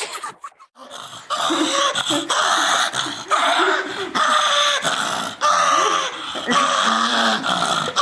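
A dog vocalizing in a string of long, wavering calls with short breaks, starting about a second in.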